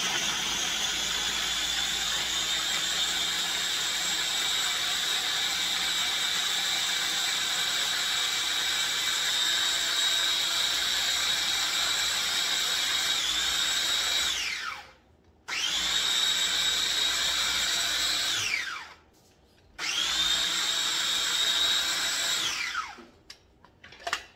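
Small electric food chopper running loaded with chilies, garlic and lime juice for a dipping sauce: one long run of about fourteen seconds, then two short pulses of about three seconds each. Its high whine falls away each time it is stopped.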